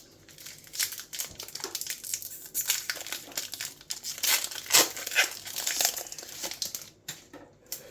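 Trading-card booster pack wrapper being crinkled and torn open by hand: a run of crackling and rustling that dies down near the end.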